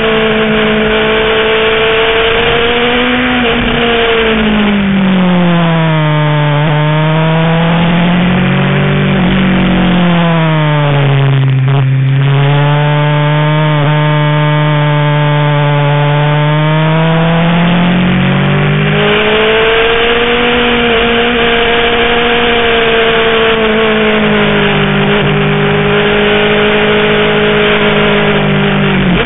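BMW S1000RR's inline-four engine heard from on board at speed. Its pitch drops and stays low through the middle, then climbs back up about two-thirds of the way in as the throttle opens again. Steady wind and road noise run under it.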